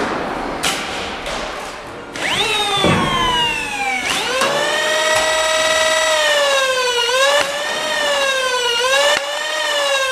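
Motor-driven flywheel foam-dart blaster revving up with a high electric whine after a few sharp clicks, sagging and revving again, its pitch dipping sharply twice as darts are fired through the flywheels, then spinning down.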